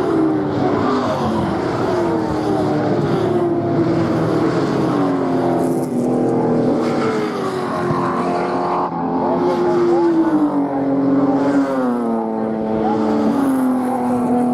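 Several racing touring cars passing at close range: overlapping engines running hard, their notes falling in pitch again and again as each car goes by, with a short rise in pitch near the end.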